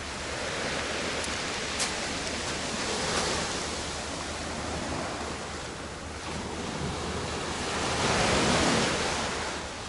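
Sea waves breaking and washing up a pebble beach, the surf swelling and fading, with the loudest wave near the end.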